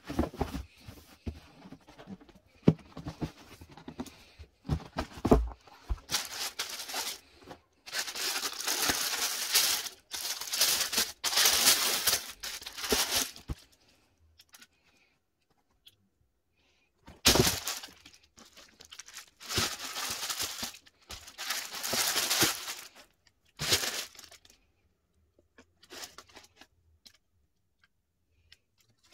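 Tissue paper rustling and crinkling in long bursts as a cardboard shoebox is unpacked, with quiet stretches between. In the first few seconds there are sharp taps and knocks as the box is handled.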